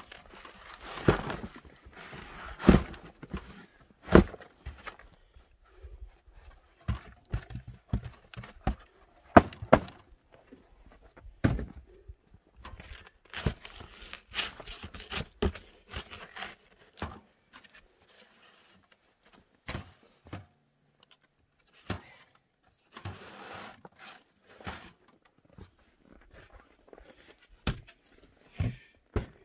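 Food scraps tipped out of a cardboard box into a worm bed, with irregular thumps and knocks, rustling and scraping of the box, and a wooden cover board being handled and laid back down.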